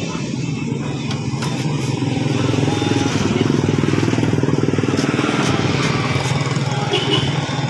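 A small motorcycle engine running steadily, with a fast even pulse, growing louder about two seconds in and holding there.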